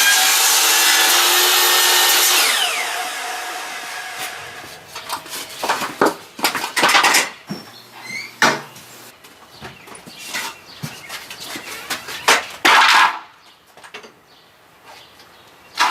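A power tool's motor running loudly, then winding down over a second or two about two and a half seconds in. Scattered knocks and clatters follow.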